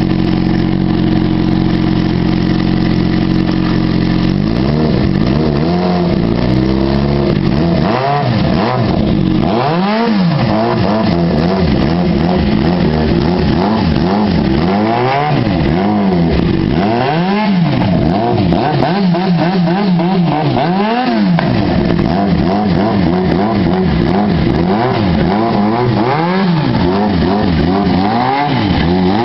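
Engine of a naked street motorcycle idling steadily, then from about four seconds in revved over and over with throttle blips, each rev rising and falling in pitch, sometimes several in quick succession.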